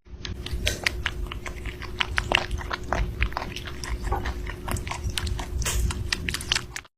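An animal chewing close up, a quick irregular run of crunching clicks, over a faint steady hum.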